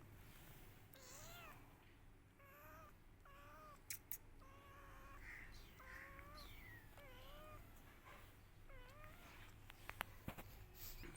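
Kittens mewing over and over, about one high cry a second, each call rising then falling in pitch. A few sharp clicks sound about four seconds in and again near the end.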